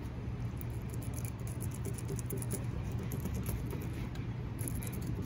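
Fillet knife cutting and scraping along a golden tilefish's skin and backbone on a plastic table: faint, irregular scratchy clicks over a steady low background hum.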